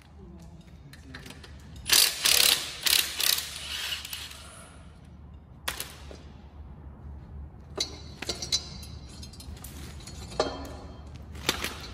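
Hand ratchet clicking in several bursts of quick clicks, with the loudest run about two seconds in and shorter runs later, as bolts are undone while the turbo comes off a Nissan TD42 diesel engine.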